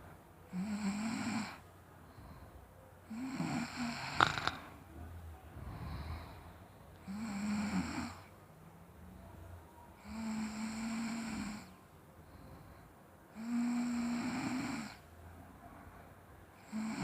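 A sleeping person snoring loudly, with a snore about every three seconds, each holding a steady low pitch, and quieter breathing between. A sharp click comes about four seconds in.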